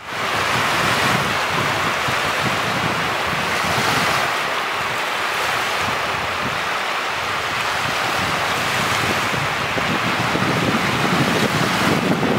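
Small lake waves breaking and washing up a sandy shore, surging every few seconds, with wind rumbling on the microphone.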